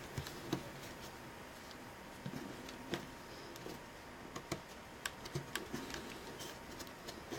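Faint, scattered clicks and taps of laptop plastic and cables being handled and pushed into place, a dozen or so light ticks spread irregularly.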